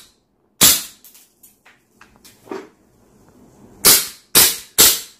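WE Luger P08 gas-blowback airsoft pistol being fired: four sharp shots, one about half a second in and three in quick succession near the end. Lighter clicks of the gun's action fall between them.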